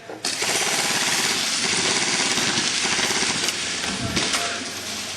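Airsoft gun firing on full auto, one long rapid burst of about four seconds.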